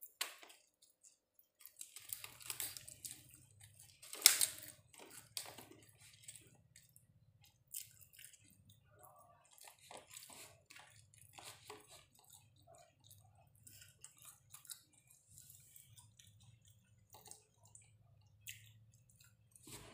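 A person chewing food eaten by hand, with scattered wet mouth clicks and small crackles; one sharp, louder crackle comes about four seconds in. A faint low hum runs underneath from about two seconds on.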